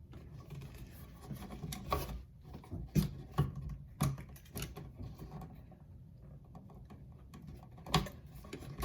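Wire stripper cutting and stripping solid copper electrical wires: a scatter of sharp snips and clicks, several close together in the middle, with faint handling rustle in between.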